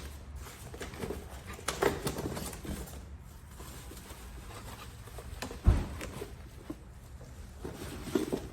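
Parts and cardboard packaging being handled: rustling and small knocks, with a sharp knock about two seconds in and a heavier thump just before the six-second mark.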